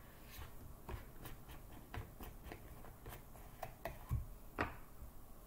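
A plastic vegetable-oil bottle being handled and its cap twisted off: a run of faint clicks and ticks, with a sharper click and a low thump a little after four seconds in.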